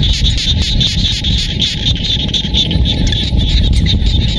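A dense chorus of many frogs calling together, a rapid pulsing trill that goes on without a break, over a steady low rumble.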